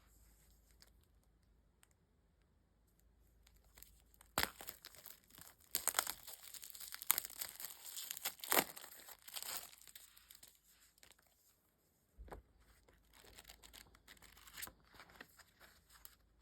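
Packaging on newly bought manga books being torn open and crinkled by hand. A busy stretch of tearing and crackling starts about four seconds in and lasts about six seconds, followed by lighter rustling handling.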